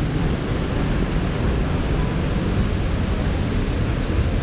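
Steady rushing of a rainforest stream and waterfall.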